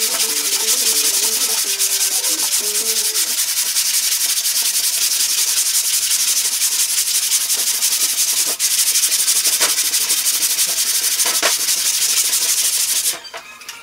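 80-grit sandpaper on a long hand sanding block rubbed back and forth over body filler on a car's trunk lid: a steady rasping hiss that cuts off abruptly just before the end.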